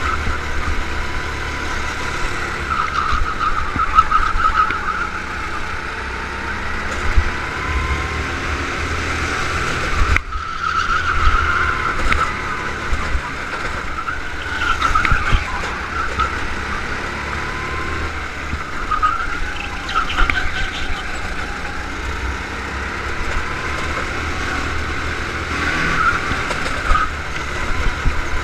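Go-kart engine heard onboard, revving up and dropping back again and again as the kart is driven through a lap's straights and corners, over a steady low rumble. The engine note dips briefly about ten seconds in.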